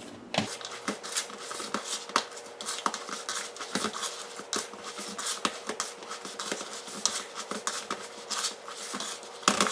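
Hands kneading soft, buttery cookie dough with chocolate drops and nut pieces in a mixing bowl: irregular small squishes and smacks, with a faint steady hum underneath and a louder knock near the end.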